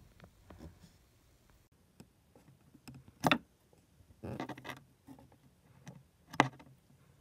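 Handling noise of a thin wooden strip being moved by hand against a wooden panel: two sharp knocks and a short scratchy rustle between them.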